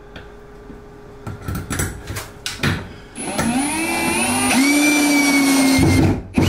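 Small electric motor of a handheld power tool spinning up with a rising whine, easing off briefly and winding up again, then running steadily for about a second and a half before it stops. Before it there are scattered clunks of handling, and after it loud knocks near the end.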